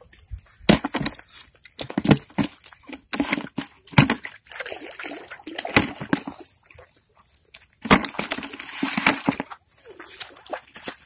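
Irregular splashing and sloshing of river water, with sharp knocks and clatter scattered through and two longer splashy stretches.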